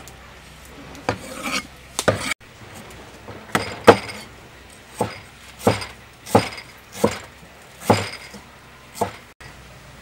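A cleaver chopping ginger root on a thick wooden chopping block: about a dozen single knocks of the blade on the wood. After a short break about two seconds in, they come fairly evenly, roughly one a second or a little faster.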